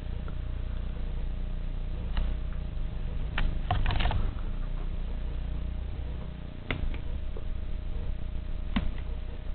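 Pull-chain switches on porcelain lamp holders clicking as their chains are pulled, turning the bulbs on and off. There are single sharp clicks about two, three and a half, six and a half and near nine seconds in, and a quick cluster about four seconds in, all over a steady low hum.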